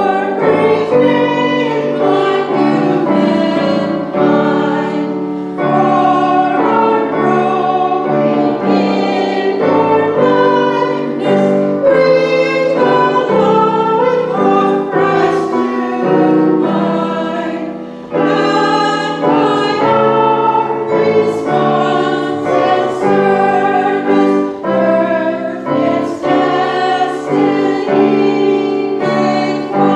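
Choir singing a hymn with instrumental accompaniment.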